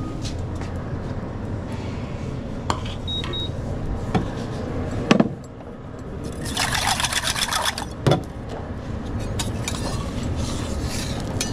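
Kitchen work at a breakfast griddle: a few sharp knocks of pans and utensils and a short high beep, then a hiss lasting about a second and a half, over a steady low hum.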